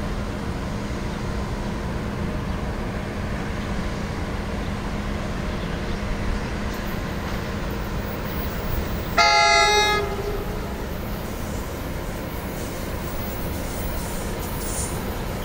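Approaching passenger train's horn sounding one short blast of just under a second, about nine seconds in, over the steady rumble of the oncoming train.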